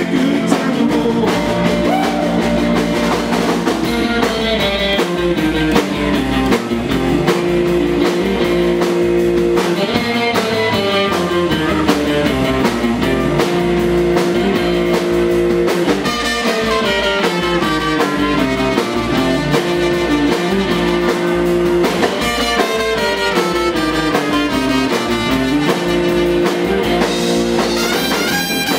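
Live rock-and-roll band: electric guitar, upright double bass and drum kit playing an instrumental passage, with a descending run that comes round about every six seconds.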